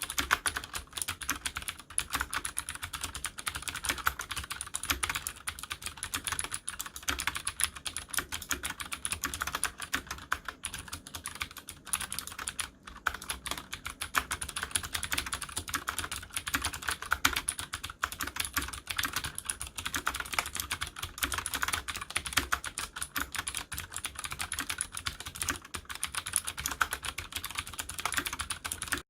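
Leopold FC750R mechanical keyboard with clicky Cherry MX Blue switches being typed on fast and continuously, a dense stream of sharp key clicks with a brief pause about halfway through.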